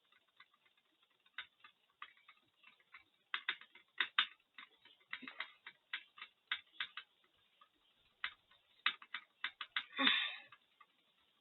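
Uneven runs of quick plastic clicks from computer keys and buttons being hammered during a click-speed test. About ten seconds in there is one louder, longer noisy burst.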